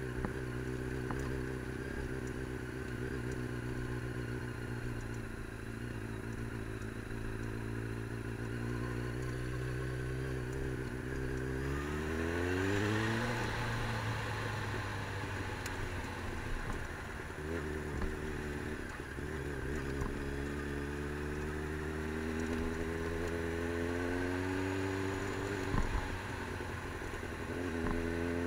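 Engine of a moving motor vehicle running steadily, then revving up about twelve seconds in, dropping back at a gear change, and climbing slowly in pitch again through the second half.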